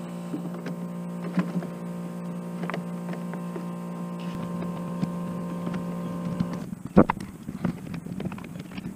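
Plastic body covers on a Honda Rancher 350 ATV being pushed and seated by hand: scattered light clicks and rattles, with one sharp knock about seven seconds in. Under it a steady hum runs and cuts off shortly before the knock.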